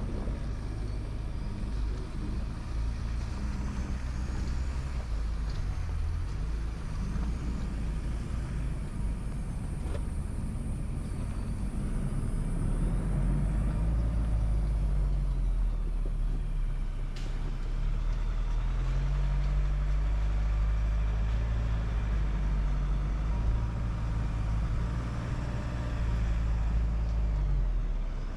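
Ford Ranger Raptor's 2.0-litre bi-turbo diesel four-cylinder running at low revs as the truck crawls over a rough dirt trail, its pitch rising and falling with the throttle. There are a couple of sharp knocks, the clearest about 17 seconds in.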